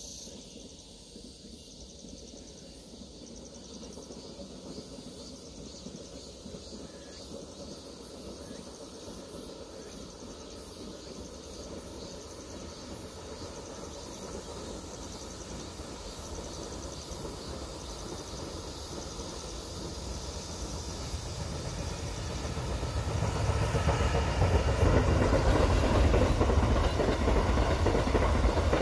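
Mugunghwa-ho passenger train approaching along the track, its running and wheel noise growing steadily louder. It becomes loudest in the last few seconds as the coaches pass close by.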